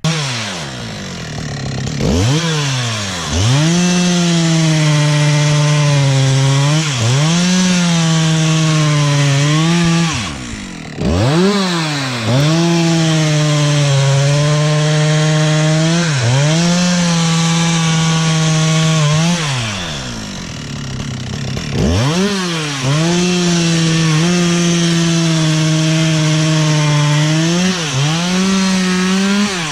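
Husqvarna 365 two-stroke chainsaw cutting into a big log: held at high, steady revs under load for several seconds at a time, with the revs dropping and climbing again every few seconds between stretches of cutting.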